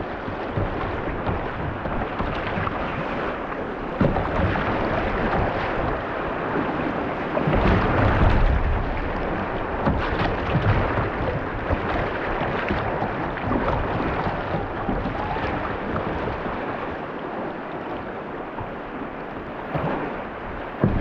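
Rushing river water around a kayak, a steady loud wash, with wind gusting on the microphone and swelling about eight seconds in.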